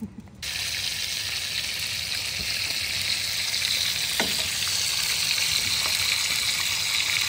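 Bacon strips sizzling as they fry in a nonstick skillet on a camp stove, a steady hiss that starts abruptly about half a second in. A fork turning the strips makes a light click or two.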